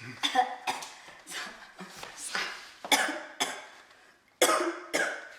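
A young woman coughing repeatedly on vape vapour: about a dozen short coughs in clusters, the loudest pair about four and a half seconds in.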